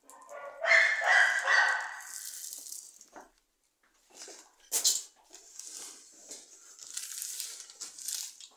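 A breath blown hard over a handful of dry beans held in cupped hands to clear away the chaff. About five seconds in there is a sharp click, then the crinkling of a plastic sheet being handled and folded.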